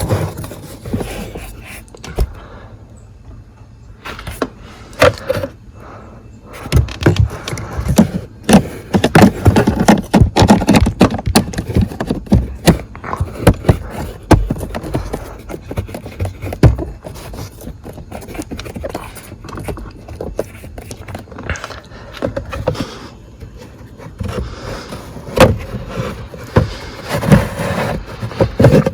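Hands working plastic trim and a cabin air filter housing: irregular scraping, knocking and clicking as a new cabin air filter and its cover are pushed and snapped back into place behind the glove box.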